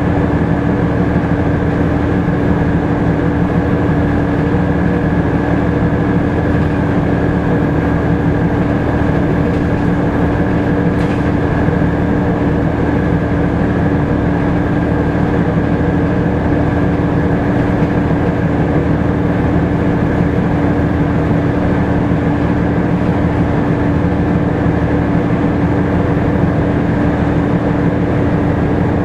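Volvo B7TL double-decker bus's straight-six diesel running, heard inside the upper deck, with a loud, steady whine from the engine cooling fan over the low engine drone.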